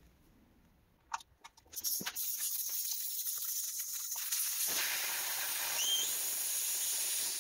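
Air hissing steadily through a motorcycle tire valve, starting about two seconds in after a couple of light clicks.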